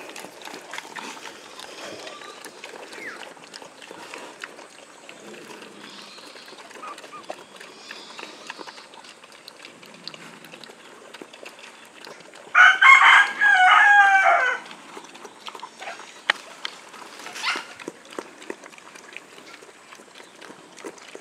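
A rooster crows once, about thirteen seconds in, a call of about two seconds ending on a falling note. Around it is a low background of faint ticks and rustles.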